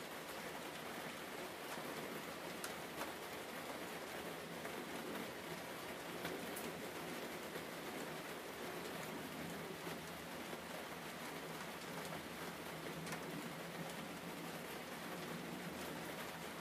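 Steady rain-like hiss with faint scattered ticks, level and unbroken throughout.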